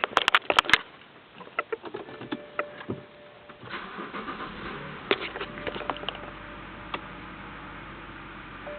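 A series of sharp clicks and knocks, then a BMW E90's engine starts about five seconds in and settles into a steady idle.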